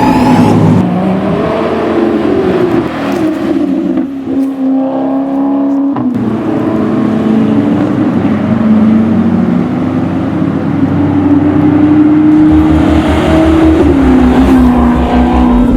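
Maserati Quattroporte V8 with a straight-through custom exhaust running loud, its note rising and falling as the engine revs, with a brief dip and a sharp click about six seconds in.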